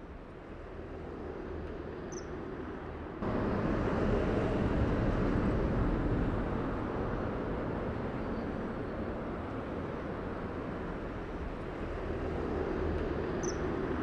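Steady rushing outdoor noise with a low rumble, stepping up sharply about three seconds in. Two brief high chirps come about two seconds in and near the end.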